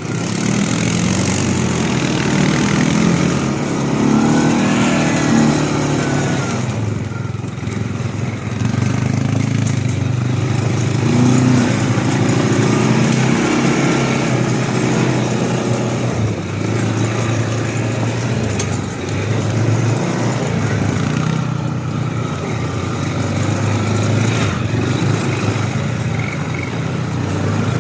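ATV engine running under way, its note rising and falling with the throttle.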